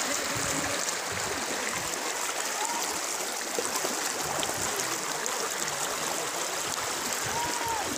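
Swollen floodwater of a river rushing past in a steady, even rush with no breaks.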